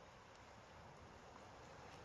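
Near silence: faint steady outdoor hiss with one or two faint ticks.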